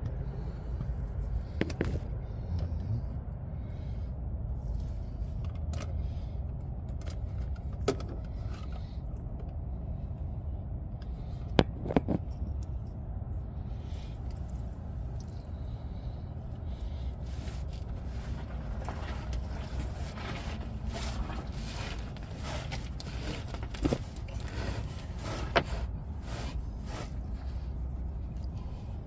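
A few sharp metal clinks and light scrapes from tools and parts being handled, over a steady low rumble.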